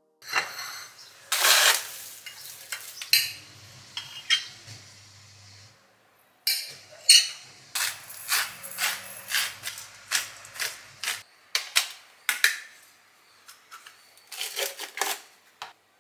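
Breakfast being put together on a kitchen counter: dishes and cutlery clinking, and a hand-turned spice grinder cracking in a run of quick clicks. Near the end a knife clinks against a plate.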